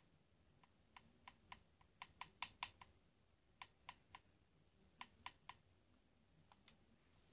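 Faint, sharp plastic clicks of remote-control buttons, about eighteen presses in quick irregular runs of two to five, while the playback is skipped ahead.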